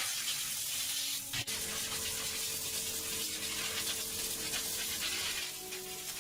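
A steady spraying hiss with a faint hum beneath it. It breaks briefly about a second and a half in, then carries on.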